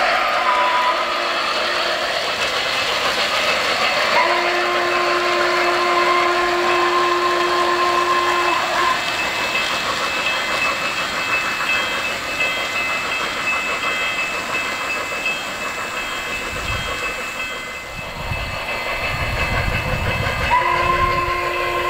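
Model steam locomotive sound system blowing a steam whistle: a short blast at the start, a long blast of about four seconds from about four seconds in, and another starting near the end, over the steady chuffing and clatter of O-gauge trains running on the track.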